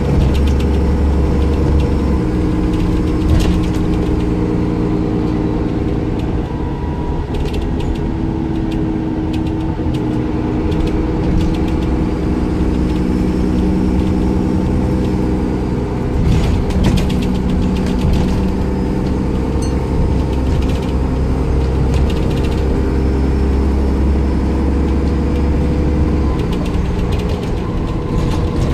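Cummins ISCe six-cylinder diesel of a Dennis Trident 2 double-decker bus running while the bus is under way, heard from inside the passenger saloon as a steady low drone with scattered clicks and rattles. The deepest part of the engine note eases off near the end.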